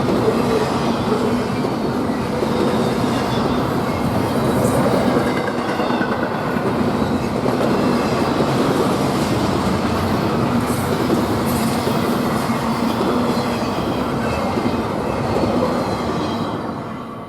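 Train cars rolling past at close range, with steady wheel and rail noise and faint squealing tones, dying away suddenly near the end.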